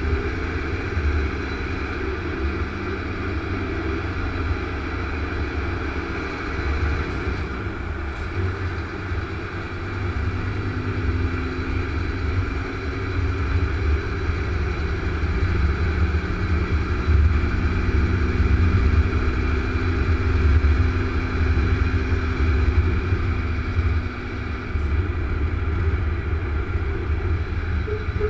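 Truck's diesel engine and tyre noise heard from inside the cab while cruising on a motorway: a steady deep rumble with a fainter engine hum that shifts a little in pitch.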